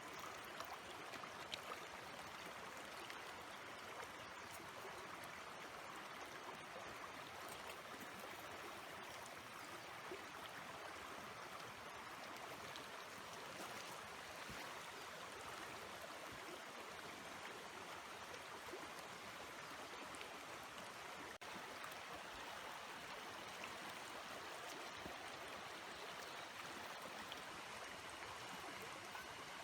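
Steady rushing of flowing water, like a stream, with a few faint ticks.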